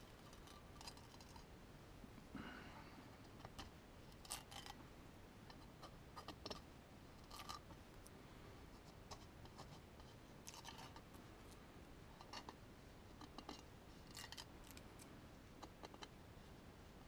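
Faint scratching and ticking of a fingernail picking and peeling the pattern off the engraved stainless steel flask, in short irregular scrapes over near silence.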